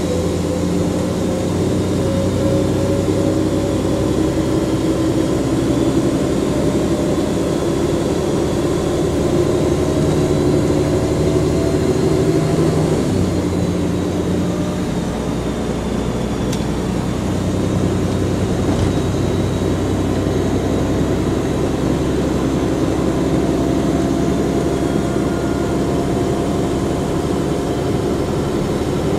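Volvo Olympian double-deck bus's diesel engine pulling under load, with a high turbocharger whistle over it. The engine note climbs slowly for about thirteen seconds, shifts abruptly, then runs on steadily while the whistle wavers.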